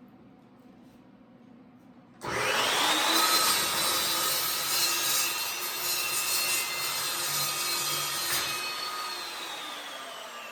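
Electric cutting tool cutting sheet metal: the motor whines up sharply about two seconds in, runs with a loud cutting noise for about six seconds, then is let off and its whine slowly winds down.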